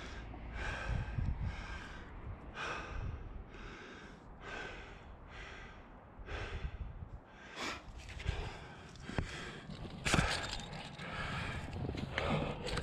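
A climber's heavy breathing: a string of short, irregular breaths through the mouth, with a few sharp scrapes of hands and shoes on granite in the second half.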